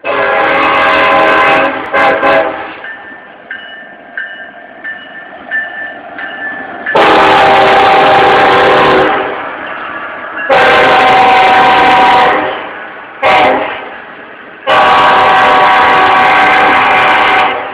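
BNSF freight locomotive's air horn, a chord of several notes, starts with a long blast and two short ones. After a pause it sounds the grade-crossing signal: long, long, short, long.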